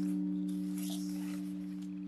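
Background music: one held chord slowly fading, with faint rustling of paper cards and pages being handled.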